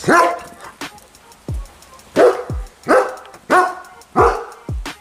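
German Shepherd barking repeatedly, about six sharp barks under a second apart, over background music with a thudding beat.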